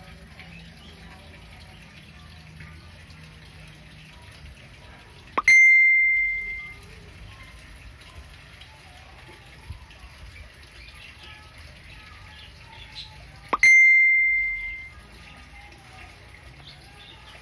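Two loud, high, single-pitch dings about eight seconds apart, each starting sharply and fading away over about a second. Underneath is a faint low hum with a light trickle of water.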